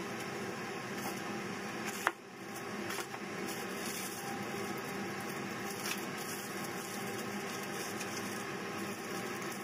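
Steady kitchen background hum, with faint handling sounds of sauce-coated pork ribs and aluminium foil being brushed and moved. There is a sharp click about two seconds in.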